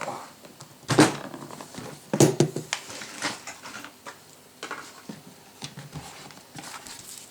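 Knocks and clatter of a heavy die-cast metal RC excavator being handled and turned over in its carry case, the two loudest knocks about a second and two seconds in, with lighter taps between.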